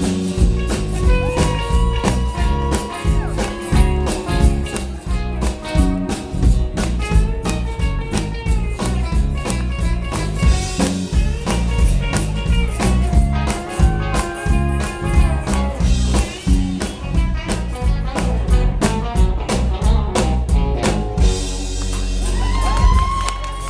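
Live band playing an instrumental passage: drums keep a steady beat under strummed acoustic guitar, while a lead line bends its notes, with a long bent note near the end.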